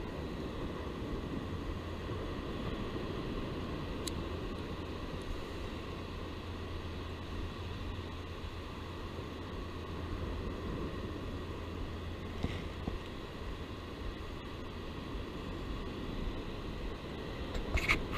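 Small, low waves washing onto a calm beach: a steady soft rush, with a low hum underneath that fades about two-thirds of the way through.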